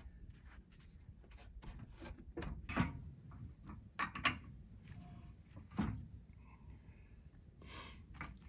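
Pine log being shifted by hand on the steel bed of a Wood-Mizer LX55 portable sawmill: a few scattered knocks and clunks, with a short scrape near the end.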